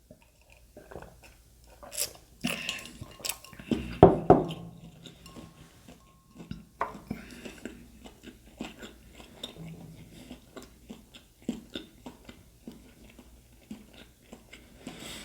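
A person chewing and eating close to the microphone, with scattered clicks and clinks of cutlery and dishes. The loudest knocks come about two and four seconds in.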